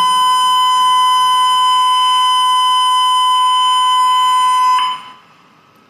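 A digital counter's electronic alarm gives one loud, steady, unbroken tone, signalling that the preset end count has been reached. It cuts off suddenly about five seconds in, stopped automatically by the counter's five-second alarm timeout.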